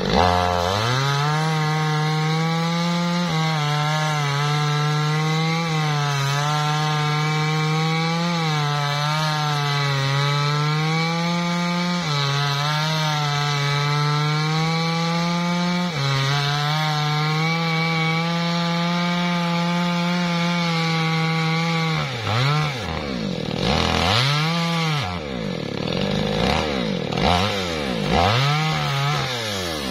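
Two-stroke chainsaw revving up and then cutting through a thick teak log at full throttle, its pitch held steady under load for about twenty seconds. After that the engine drops toward idle and is revved up again several times.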